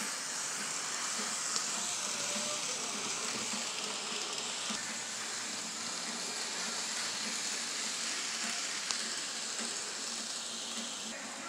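N scale model passenger train running along the track: a steady hissing whir of wheels and motor, with a couple of faint clicks.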